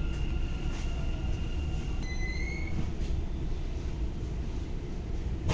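Dubai Metro driverless train heard from inside the carriage as it comes into a station: a steady low rumble with a high whine that cuts out about two seconds in, followed by a short, slightly rising tone.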